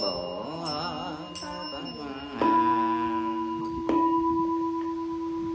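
Chanted Buddhist invocation, one voice drawing out a bodhisattva's name in a wavering melody, with a few light strikes of a small bell, ending about two seconds in. A temple bowl bell is then struck and rings on in a steady hum, and is struck again about a second and a half later.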